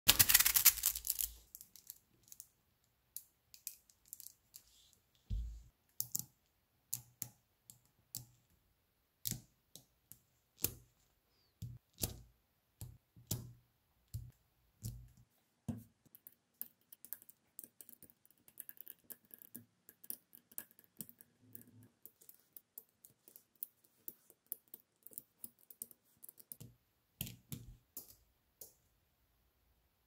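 Small magnetic balls clicking as they snap onto one another, one at a time at an irregular pace. In the first second or so a handful of balls rattles and clatters together in a dense, louder burst.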